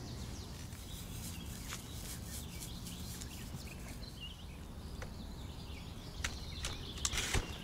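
Outdoor ambience: small birds chirping faintly over a steady low rumble, with a few sharp clicks and a brief rustle near the end.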